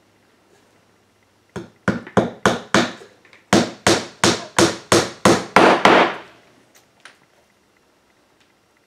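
Hammer driving a small nail into the wooden birdhouse box: a few lighter taps to set the nail, then about a dozen sharper blows at roughly three a second, stopping about six seconds in.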